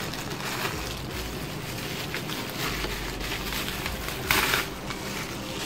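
Clear plastic packaging bag crinkling and rustling as it is handled and opened, with a louder burst of crinkling a little past four seconds in.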